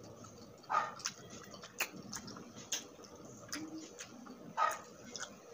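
Close-miked eating sounds: chewing grilled skewered street food, with wet mouth clicks and a couple of short louder mouth sounds, about a second in and near the end.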